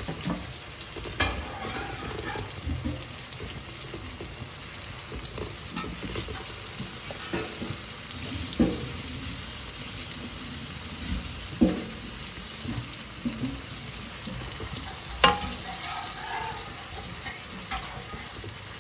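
Food frying in a pan with a steady sizzle, and a cooking utensil knocking and scraping against the pan now and then, with one sharp knock late on.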